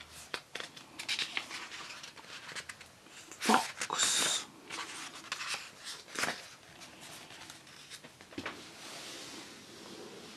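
Pages of a paper colouring book being handled and turned: a run of rustles and brushes, with the loudest swish of a page turning about four seconds in and a few soft taps after it.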